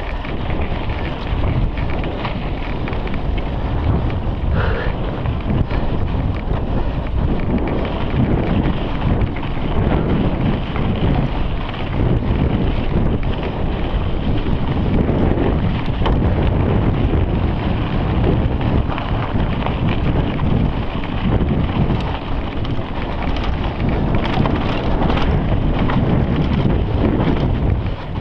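Wind buffeting the microphone of a camera on a mountain bike riding fast down dirt singletrack, over a constant low rumble and rattle of the tyres and bike on loose dirt and rocks.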